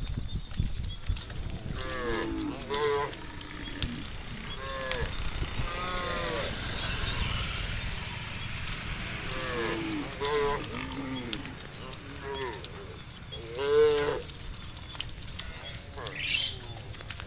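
A herd of cattle mooing: about ten short calls from several animals come one after another, the loudest about two-thirds of the way through.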